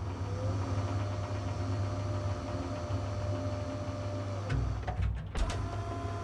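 A steady low hum with a higher whine above it. The whine rises slightly near the start and falls away about four and a half seconds in.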